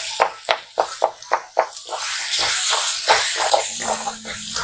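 Wooden spatula knocking and scraping against an aluminium kadai as boiled potato is mashed and stirred into a dry cauliflower masala: a quick run of knocks, about four a second, then a steadier scraping hiss with a few more knocks.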